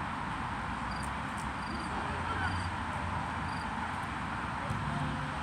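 Steady outdoor background noise with a low hum, and a cricket giving five short, high chirps about half a second apart between one and four seconds in; a few faint ticks.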